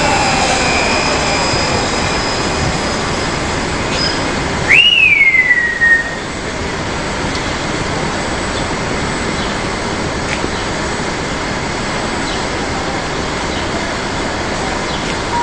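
Gantry crane machinery running steadily, with a motor whine falling in pitch at the start. About five seconds in, a loud squeal jumps up in pitch and then slides down over about a second.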